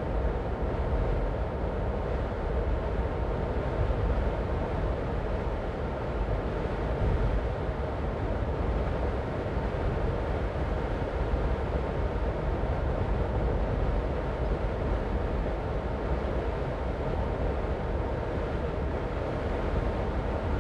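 A car driving on the road, with tyre and engine noise blending into a steady, even noise and nothing standing out.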